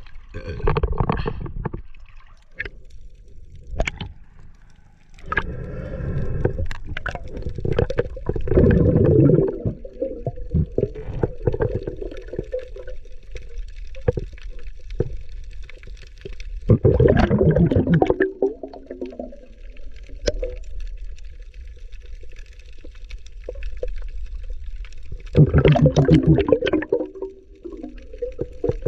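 Water gurgling and rushing around a diver and his camera as he dives and swims underwater. It comes in several louder bursts of bubbling a few seconds apart, over a low steady underwater background.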